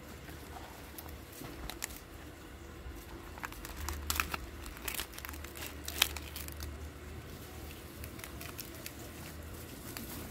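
Fresh taro and banana leaves crinkling and rustling as they are folded by hand into a parcel, with a cluster of crackles midway and one sharp snap about six seconds in.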